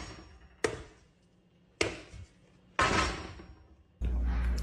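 Three hard knocks about a second apart, each dying away quickly: a hard pizza being banged against a frying pan.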